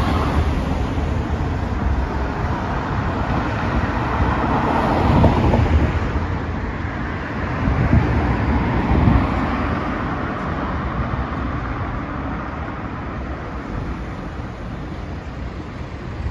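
Road traffic: cars passing on a city street, a steady rumble and tyre noise that swells as vehicles go by about five seconds in and again around eight to nine seconds, then eases off.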